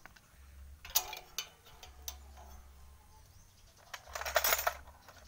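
Steel wrenches clinking against each other in a metal toolbox as they are picked through: a couple of sharp clinks about a second in, then a denser jangle just after four seconds.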